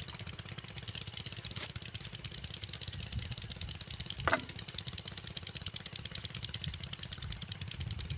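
Small Chinese diesel engine of an irrigation water pump idling with a steady, fast knocking beat. About four seconds in there is one short sharp sound that falls in pitch.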